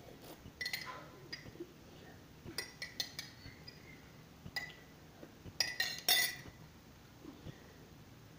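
A spoon clinking against a dish in four short clusters of sharp ringing taps, the loudest about six seconds in.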